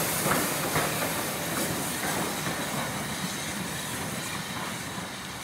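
Lancashire & Yorkshire Railway 0-6-0 steam locomotive No. 957 hauling coaches past and pulling away, its exhaust and the wheels on the rails fading steadily as the train moves off.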